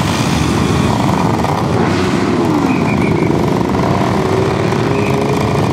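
A crowd of motorcycle and scooter engines running together at low speed, some revving. Near the middle one engine's pitch dips and then climbs, settling into a steady note.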